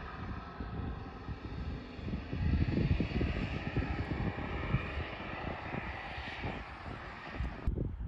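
Wind gusting on the microphone over a faint, steady engine hum that swells around the middle.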